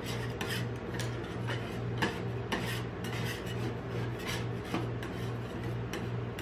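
Metal spatulas scraping and tapping across a frozen steel ice-cream-roll plate, gathering up leftover frozen ice cream scraps in short strokes, about two a second, over a steady low hum.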